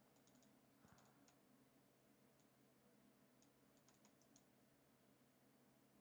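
Near silence: room tone with about a dozen faint computer mouse clicks, some in quick clusters, stopping about four and a half seconds in.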